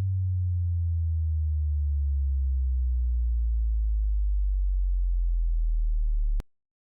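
Low sine-wave test tone from the THX Optimizer audio test, sweeping slowly downward in pitch from a bass hum into a deep rumble, then cutting off suddenly near the end.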